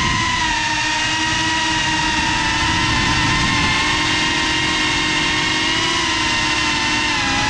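FPV quadcopter's electric motors and propellers whining steadily, heard from the drone's own onboard camera, the pitch dipping briefly near the end, with a rough wind rumble underneath.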